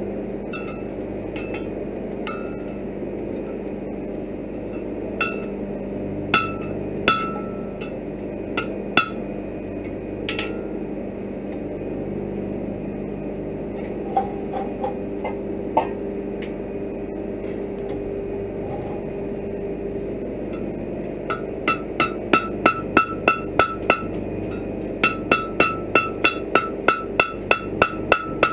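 Blacksmith's hammer striking iron on a steel anvil. A few scattered blows come in the first ten seconds, then after a pause two fast runs of ringing blows, about three to four a second, fill the last seven seconds.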